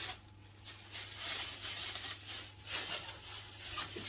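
Plastic bag rustling and crinkling in the hands as cheese is wrapped up to be put away, in irregular bursts that grow busier about a second in.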